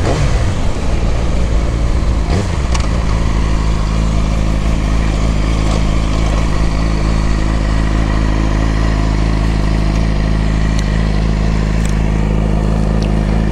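Yamaha R6's inline-four engine as the bike slows to a stop, then idling steadily, with a few light clicks.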